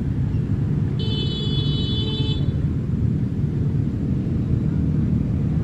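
Diesel locomotive of a passenger train rumbling steadily as the train pulls out, with a brief high-pitched whine about a second in that lasts just over a second.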